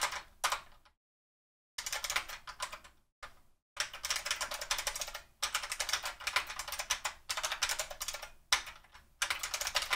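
Typing on a computer keyboard: quick runs of key clicks in spurts, broken by short pauses and one brief dead silence about a second in.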